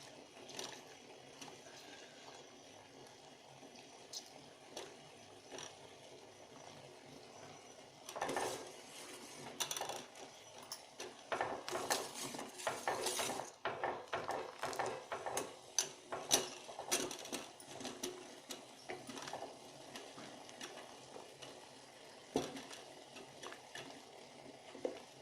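Kitchen utensils clinking and scraping against a cooking pot, with occasional clicks at first, a busy run of clinks and scraping in the middle, then sparse clicks again.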